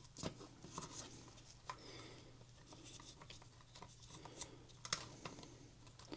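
Faint handling noises: scattered small clicks and scratches as wiring and small plastic parts are pushed into an RC crawler's chassis, over a low steady hum.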